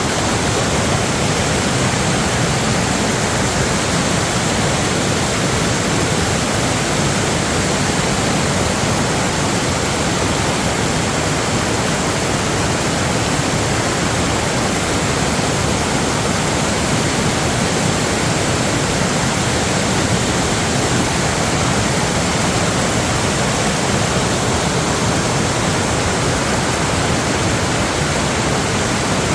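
Steady, loud rush of water, unbroken and unchanging throughout.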